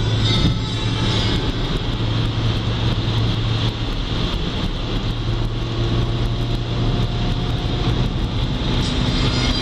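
Fiat Uno 1.6 MPI driving at a steady speed, engine and road noise heard as a steady drone from inside the car.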